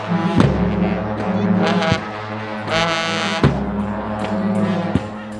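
Shembe dance music: horns hold long, layered notes over large bass drums struck slowly, four heavy beats about a second and a half apart.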